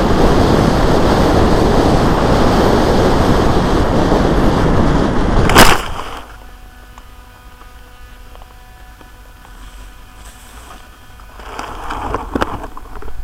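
Wind rushing over an RC plane's onboard camera microphone in low flight, cut off about five and a half seconds in by one sharp loud impact as the plane hits the ground in tall grass. Then it is quiet, with rustling of grass near the end.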